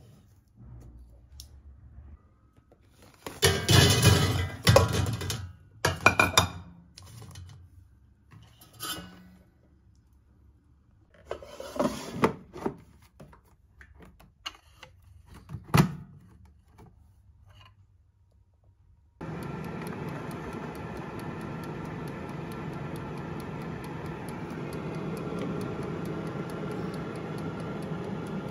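Knocks and clatter of kitchen handling: chestnuts being cut on a wooden cutting board and the air fryer basket being handled. About two-thirds of the way in, an air fryer switches on and its fan runs with a steady whir while its dial timer ticks.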